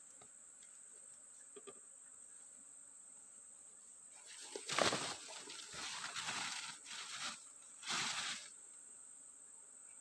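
Rustling and brushing in leafy undergrowth, in a few noisy spells from about four seconds in to near the end, over a steady high-pitched insect drone.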